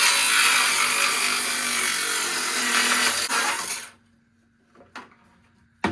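Power saw cutting through wood, running loud and steady for about four seconds and then stopping.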